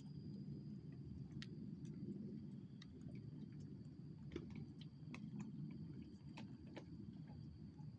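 Quiet lakeside ambience: a steady high insect drone over a low rumble, with scattered faint ticks and clicks.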